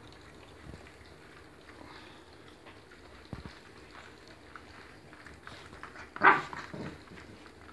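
Kelpie puppies eating mince and oats from a shared tray, with faint small chewing and lapping clicks. About six seconds in, a dog gives one short, loud bark.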